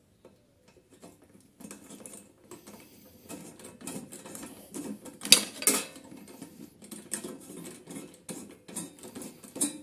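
Small metal clicks and scrapes of a hand-turned hex bit and extension driving screws into a starter motor's mounting, irregular and fiddly, with two louder clicks about five and a half seconds in.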